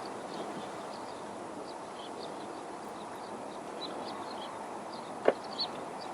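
Small birds chirping here and there over a steady background hiss, with one sharp click about five seconds in and a fainter one just after.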